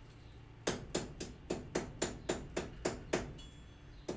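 Steel hammer blows on an anvil, forge welding the barbell onto a vise screw: a quick run of ringing strikes, about four a second, with a short break near the end before they start again.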